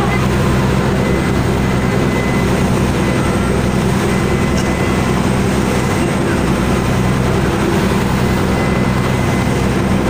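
Passenger launch's engine running steadily with a low drone, over the rushing of its churning wake.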